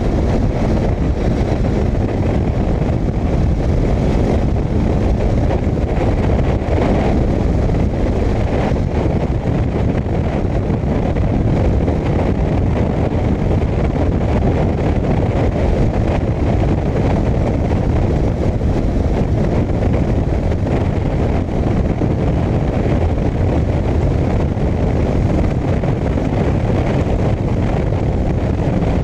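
1985 Harley-Davidson Sportster 1000 Ironhead's air-cooled V-twin running steadily at road speed, under heavy wind noise on the microphone.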